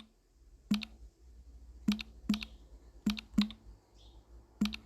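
Slow, hunt-and-peck keystrokes on a computer keyboard: about six separate sharp key clicks, each with a short low thud, at uneven intervals while a search question is typed.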